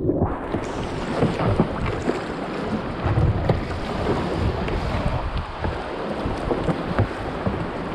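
Steady rushing of river whitewater, with wind buffeting the microphone, starting abruptly at the outset.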